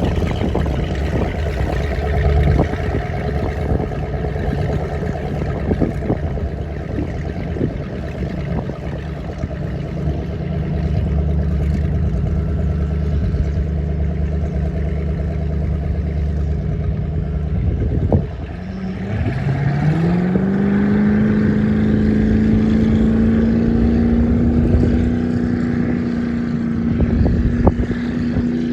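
1994 Cobalt 200 bowrider's engine running with a low rumble. About two-thirds of the way through, the sound dips briefly, then the engine revs rise smoothly and hold steady at a higher pitch.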